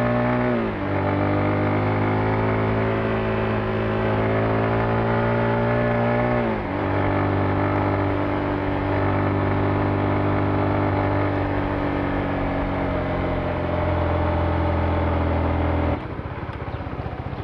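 Honda scooter's engine heard from the rider's seat while riding, running steadily with two sharp drops in pitch, about half a second in and about six and a half seconds in. About a second before the end it switches abruptly to a quieter, rougher sound.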